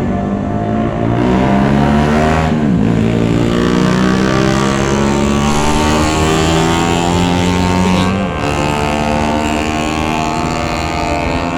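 A vehicle engine running on the move over a steady rush of road and wind noise. Its note dips sharply and picks up again twice, about three seconds and eight seconds in.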